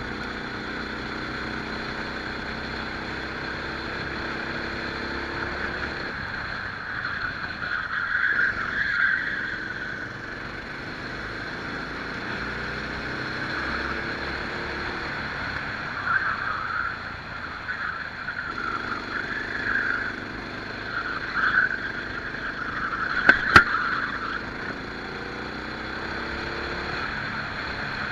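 Rental kart engine running at race pace, its pitch rising and falling as the kart accelerates and lifts. Swells of hissing noise ride over it at times, and there is one sharp knock late on.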